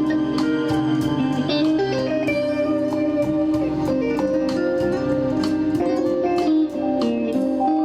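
Six-string guitar playing an instrumental piece, a quick run of plucked notes over held tones.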